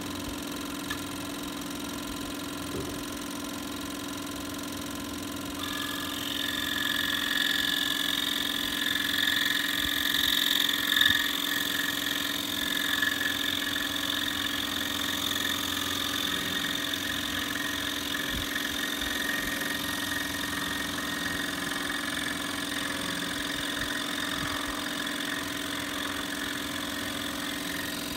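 Electric scroll saw running with a steady hum; about six seconds in its blade begins cutting through a wood block, adding a higher, louder sawing noise that continues to the end.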